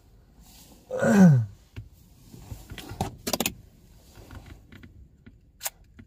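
Close handling sounds of coins, tissue paper and a small plastic magnifying glass: scattered small clicks and short rustles, the sharpest clicks about three seconds in and again near the end. About a second in comes the loudest sound, a brief low voice sound that falls in pitch.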